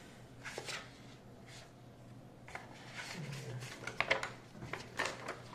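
Paper and card packaging being handled: the light rustle and slide of card folders and leaflets, with a cluster of short sharp taps and crinkles about four seconds in.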